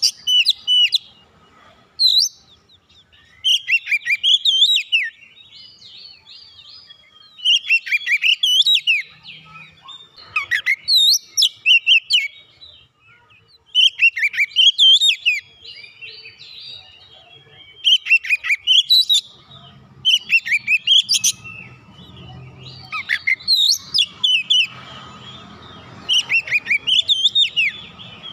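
Oriental magpie-robin (kacer) singing loud phrases of quick up-and-down gliding notes, each about a second long, with short pauses between them.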